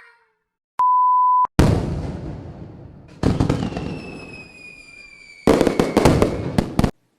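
A short, steady, high beep tone, then firework-like explosions: a loud bang that fades away, a second bang carrying a slowly falling whistle, and a rapid crackling string of firecracker bangs near the end.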